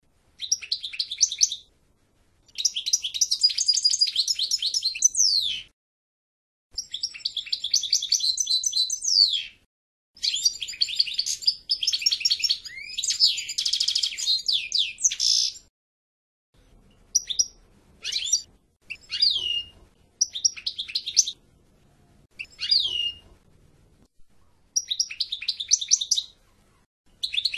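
European goldfinch singing: rapid, high twittering and trilled phrases, some ending in a quick falling note. Long phrases of several seconds come in the first half, then shorter bursts with brief pauses between them.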